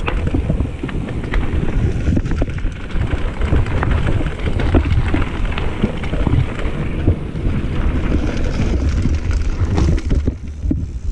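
Mountain bike riding fast over a dirt trail, heard from a camera on the rider: a steady rumble of wind on the microphone and tyres on dirt, with frequent sharp clicks and rattles from the bike over bumps.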